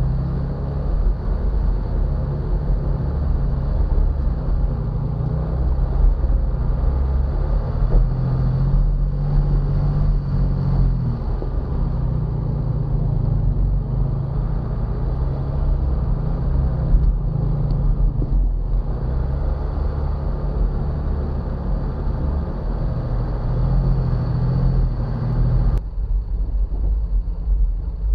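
A Jeep Wrangler's engine and drivetrain running steadily with a low rumble as it drives an off-road trail, picked up through the hood by a hood-mounted camera, with a faint steady high whine. About two seconds before the end, the sound drops and changes abruptly.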